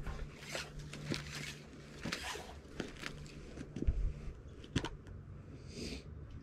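Orange magnet-fishing rope being hauled in hand over hand, giving light rustles and a string of short clicks, with a couple of soft thumps about four seconds in and a brief hiss near the end.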